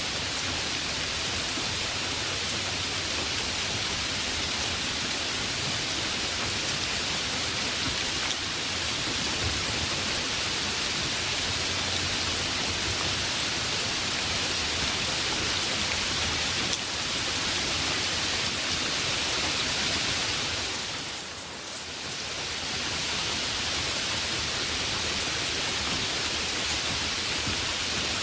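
Heavy rain falling steadily: a dense, even hiss of drops. The level dips briefly about two-thirds of the way through, then returns.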